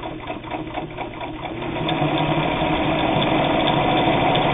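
Singer 66 all-metal straight-stitch sewing machine stitching through eight layers of heavy denim. It starts slowly, with distinct needle strokes about four a second, then about two seconds in speeds up into a steady fast run, sewing the thick stack without strain.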